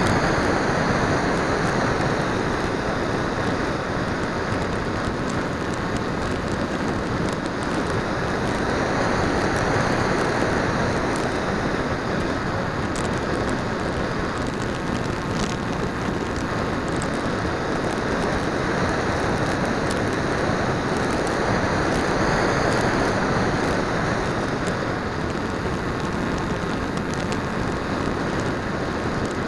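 Steady rush of wind and propeller noise on the onboard camera's microphone of a radio-control flying wing in fast flight, swelling and easing a little every several seconds.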